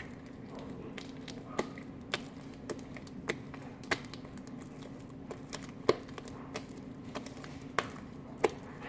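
Sticky fluffy slime being kneaded and squeezed by hand, giving off irregular sharp pops and clicks as it pulls and snaps, one or two a second, over a steady low hum.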